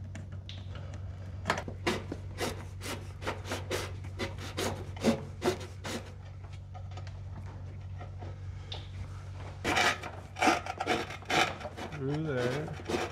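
Braided rubber oil hose being handled and dragged along a truck's frame: a string of short scraping, rubbing strokes in two spells, over a steady low hum.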